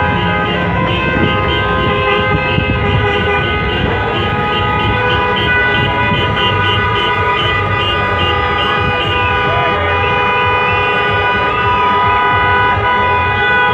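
Many car horns sounding at once, long overlapping blasts from a slow car convoy honking in celebration. In the first half some horns beep in a quick repeated pattern.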